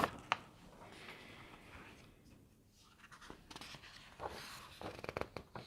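Quiet room tone in a small room with a few faint clicks and soft rustles, like handling or browsing through documents.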